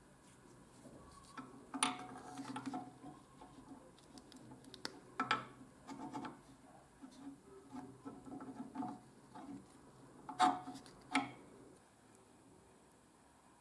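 Metal drill parts clinking and knocking as a steel gear and its shaft are fitted into the cast-iron frame of a breast drill. There are a few sharp clinks, about two, five and ten seconds in, with quieter handling and rubbing between them.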